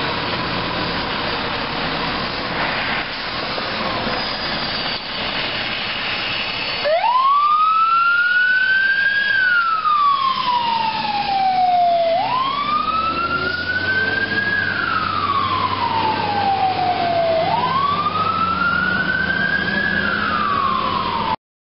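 Fire engine pulling out and driving off: its engine runs for about seven seconds, then its siren starts and wails in three slow cycles, each rising and then falling over about five seconds. The sound cuts off suddenly near the end.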